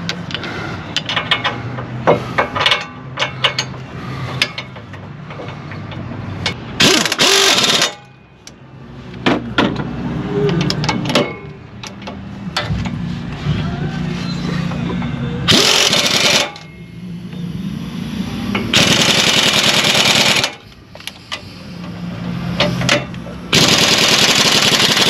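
Impact wrench hammering in four short bursts of a second or two each, running suspension bolts in. Between the bursts come clinks and clanks of tools and metal parts.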